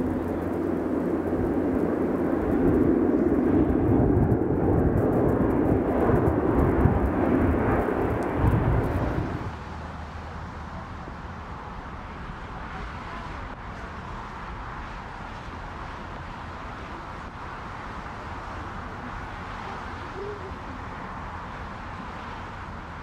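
Jet airliner engines running loud as a twin-engine jet flies low overhead, with wind buffeting the microphone. About nine and a half seconds in, the sound cuts abruptly to a quieter, steady hiss and rumble of a Boeing 747 freighter touching down on a wet runway in spray.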